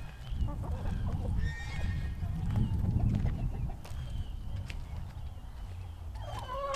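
Chickens clucking and calling in their pen, with a steady low rumble underneath; a louder, wavering call comes near the end.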